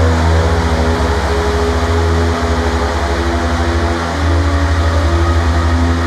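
Electronic music: a loud, rapidly pulsing low drone with held tones stepping from one pitch to another above it, over a steady hiss. The drone dips briefly twice.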